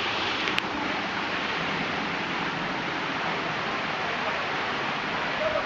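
Waterfall pouring, a steady dense rush of falling water with no change in level. A brief click about half a second in.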